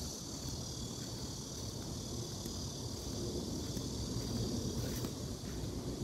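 Wind buffeting a phone's microphone as a rough, fluttering low rumble, with a steady high hiss above it.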